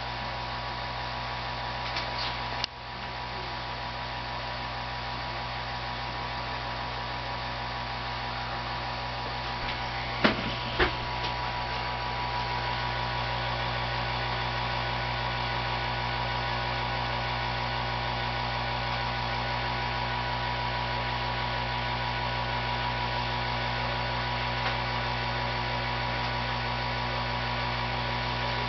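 Steady electrical mains hum with a few sharp ticks from 6JE6C vacuum tubes: one about three seconds in, and two close together about ten seconds in.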